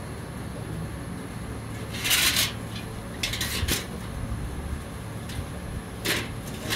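Three short bursts of light clicking and scraping as hands handle parts at a lawn mower carburetor, over a low steady background hum.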